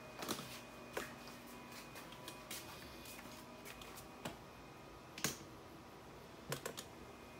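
A few sharp clicks and taps at irregular moments, the strongest about five seconds in, over a faint steady hum.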